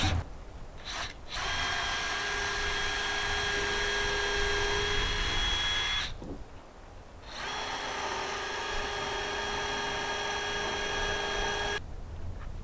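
Power drill running at a steady pitch in two runs of about four to five seconds each, with a short pause between them.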